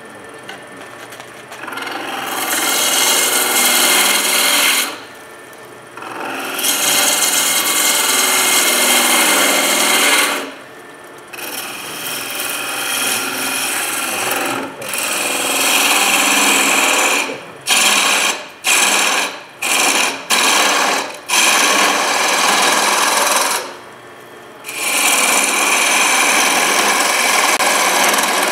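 Turning tool cutting a fibrous Banksia pod spinning on a wood lathe: a rasping hiss in cuts of a few seconds, with short pauses between them, and a run of brief cuts in the second half.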